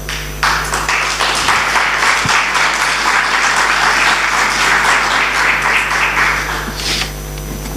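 Audience applauding, starting about half a second in and dying away near the end, over a steady electrical mains hum.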